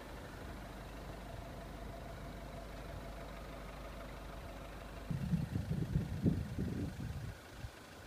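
Steady low hum of vehicle engines idling at a closed level crossing. From about five seconds in, a couple of seconds of irregular low rumbling bumps on the microphone.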